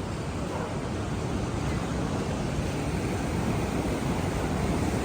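Steady rush of ocean surf mixed with wind buffeting the microphone, heaviest in the low end and swelling slightly louder toward the end.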